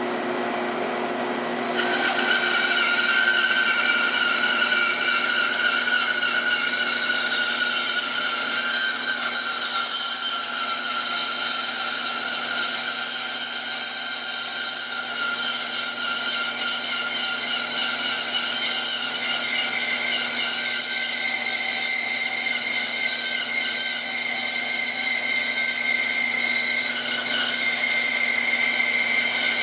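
Grizzly G1073 16-inch band saw running steadily while its blade resaws a thin slice of veneer from a board. The sound gets fuller and higher about two seconds in, as the cut gets under way.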